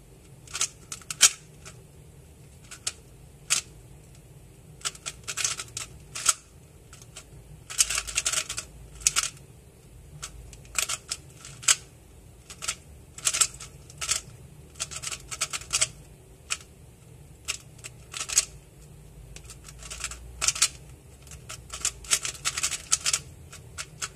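A relubed Weilong WRM 2019 3x3 speedcube being turned fast by hand during a timed solve: rapid clicking of the layers in quick runs, with short pauses between them.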